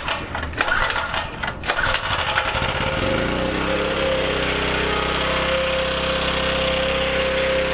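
Small portable gasoline generator engine on choke, firing unevenly with knocks for the first couple of seconds, then settling into a steady run about three seconds in.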